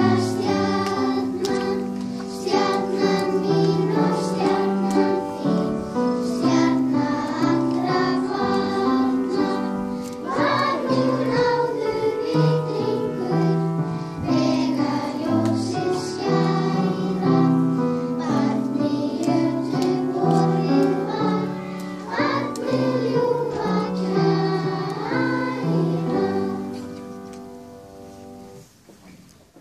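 A group of children singing together as a choir, their song dying away over the last few seconds.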